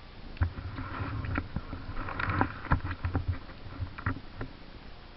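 Mountain bike rattling and knocking over a rough, wet trail: irregular thumps and sharp clicks over a noisy rush, dying down to a steadier hiss near the end.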